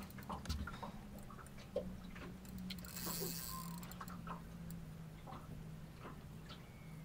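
Spinning reel ticking as line is wound in against a hooked pike on a bent rod, over a faint steady low hum.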